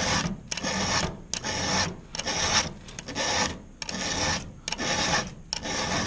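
Round chainsaw file rasping across a chain cutter in repeated push strokes, roughly one a second, with short gaps between strokes. The file is reshaping a badly dulled cutter, clearing out the gullet and working across the top plate.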